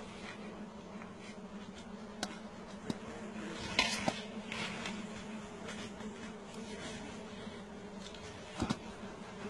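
Bees buzzing steadily around an opened honeycomb, with a few sharp clicks and scrapes from a knife cutting the comb and touching the bowl, the loudest cluster about four seconds in.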